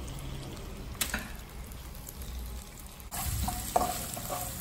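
Chopped garlic and chilli flakes frying in oil in a non-stick wok, with a light click about a second in. About three seconds in the sizzling suddenly gets louder as more liquid reaches the pan and a spatula starts stirring.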